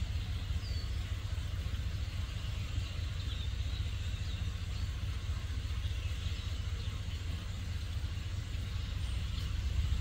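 Truck engine idling with a steady low rumble, and a flock of birds chirping faintly over it in short scattered calls.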